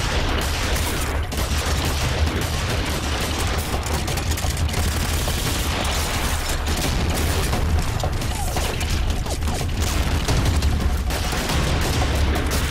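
Gunfight: pistols and rifles firing rapidly, the shots overlapping densely without a pause.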